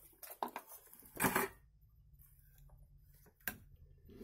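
Faint handling noises of small objects on a desk: a short rustle about a second in and a sharp click near the end.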